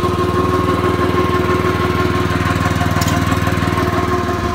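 Small gasoline engine of a skid-mounted fire pump running steadily at low throttle, a fast even putter.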